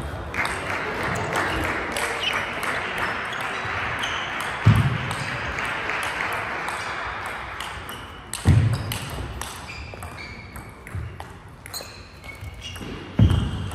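Table tennis ball being played back and forth in a rally: quick, sharp clicks of the ball off the bats and the table, with three heavier thuds spread through it.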